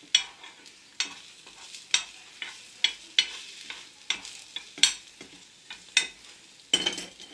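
Metal spoon clicking and scraping against a frying pan about once a second while beaten egg is spooned into a bread slice in the pan, with faint sizzling of the egg frying underneath.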